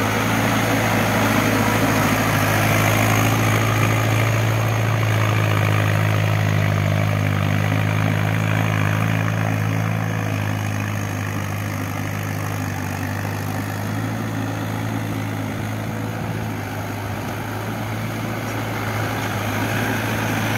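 Mahindra 4WD tractor's diesel engine running steadily under load as it drags a cultivator through wet paddy mud for puddling. It is loudest in the first few seconds, drops somewhat in the middle as the tractor moves off, and grows louder again near the end as it comes back.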